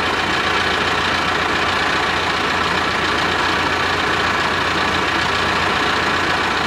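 Mahindra 8560 tractor's diesel engine running steadily while its loader holds a load.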